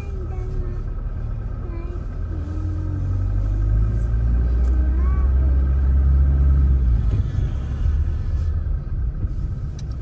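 Low rumble of a car's engine and tyres heard from inside the moving car. It swells louder about a third of the way in, then eases off near the end.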